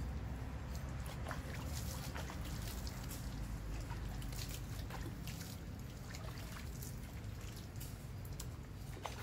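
Water being poured over a puppy during a bath, splashing and dripping onto the puppy and the wet concrete in many short splashes.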